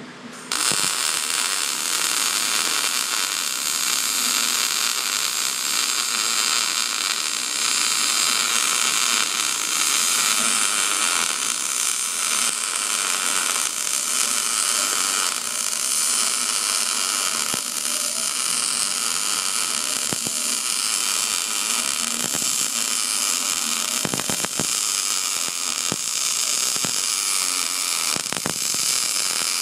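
MIG welding arc running, a steady hiss as a weld bead is laid to join a steel cup to its base plate. The arc strikes about half a second in and holds without a break.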